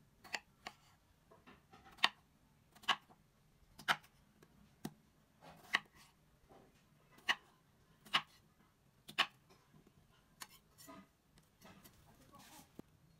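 Kitchen knife cutting a peeled raw potato into chunks, each cut ending in a sharp tap of the blade on the cutting surface, about one a second.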